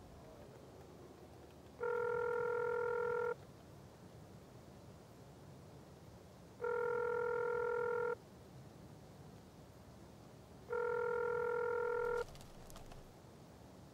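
Telephone ringback tone heard through a mobile phone's earpiece while a call rings unanswered: three identical beeps, each about a second and a half long and spaced several seconds apart.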